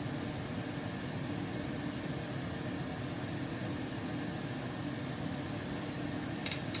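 Steady low hum of a running fan or motor with a faint hiss, and a brief light click near the end.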